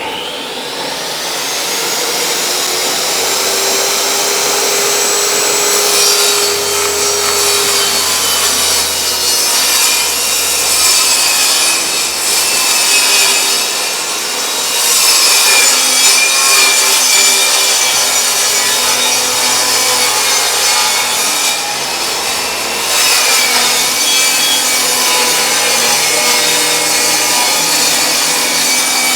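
Electric power saw cutting through a wood panel in one long continuous cut, with a steady high whine over the noise of the blade in the wood.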